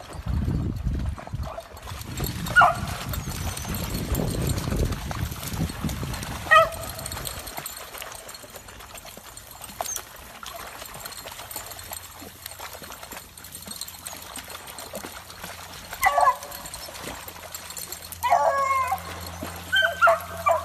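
Hunting beagles giving short, pitched bays: a single one about two seconds in, another about six seconds in, then several in quick succession near the end. A low rumbling noise runs under the first third.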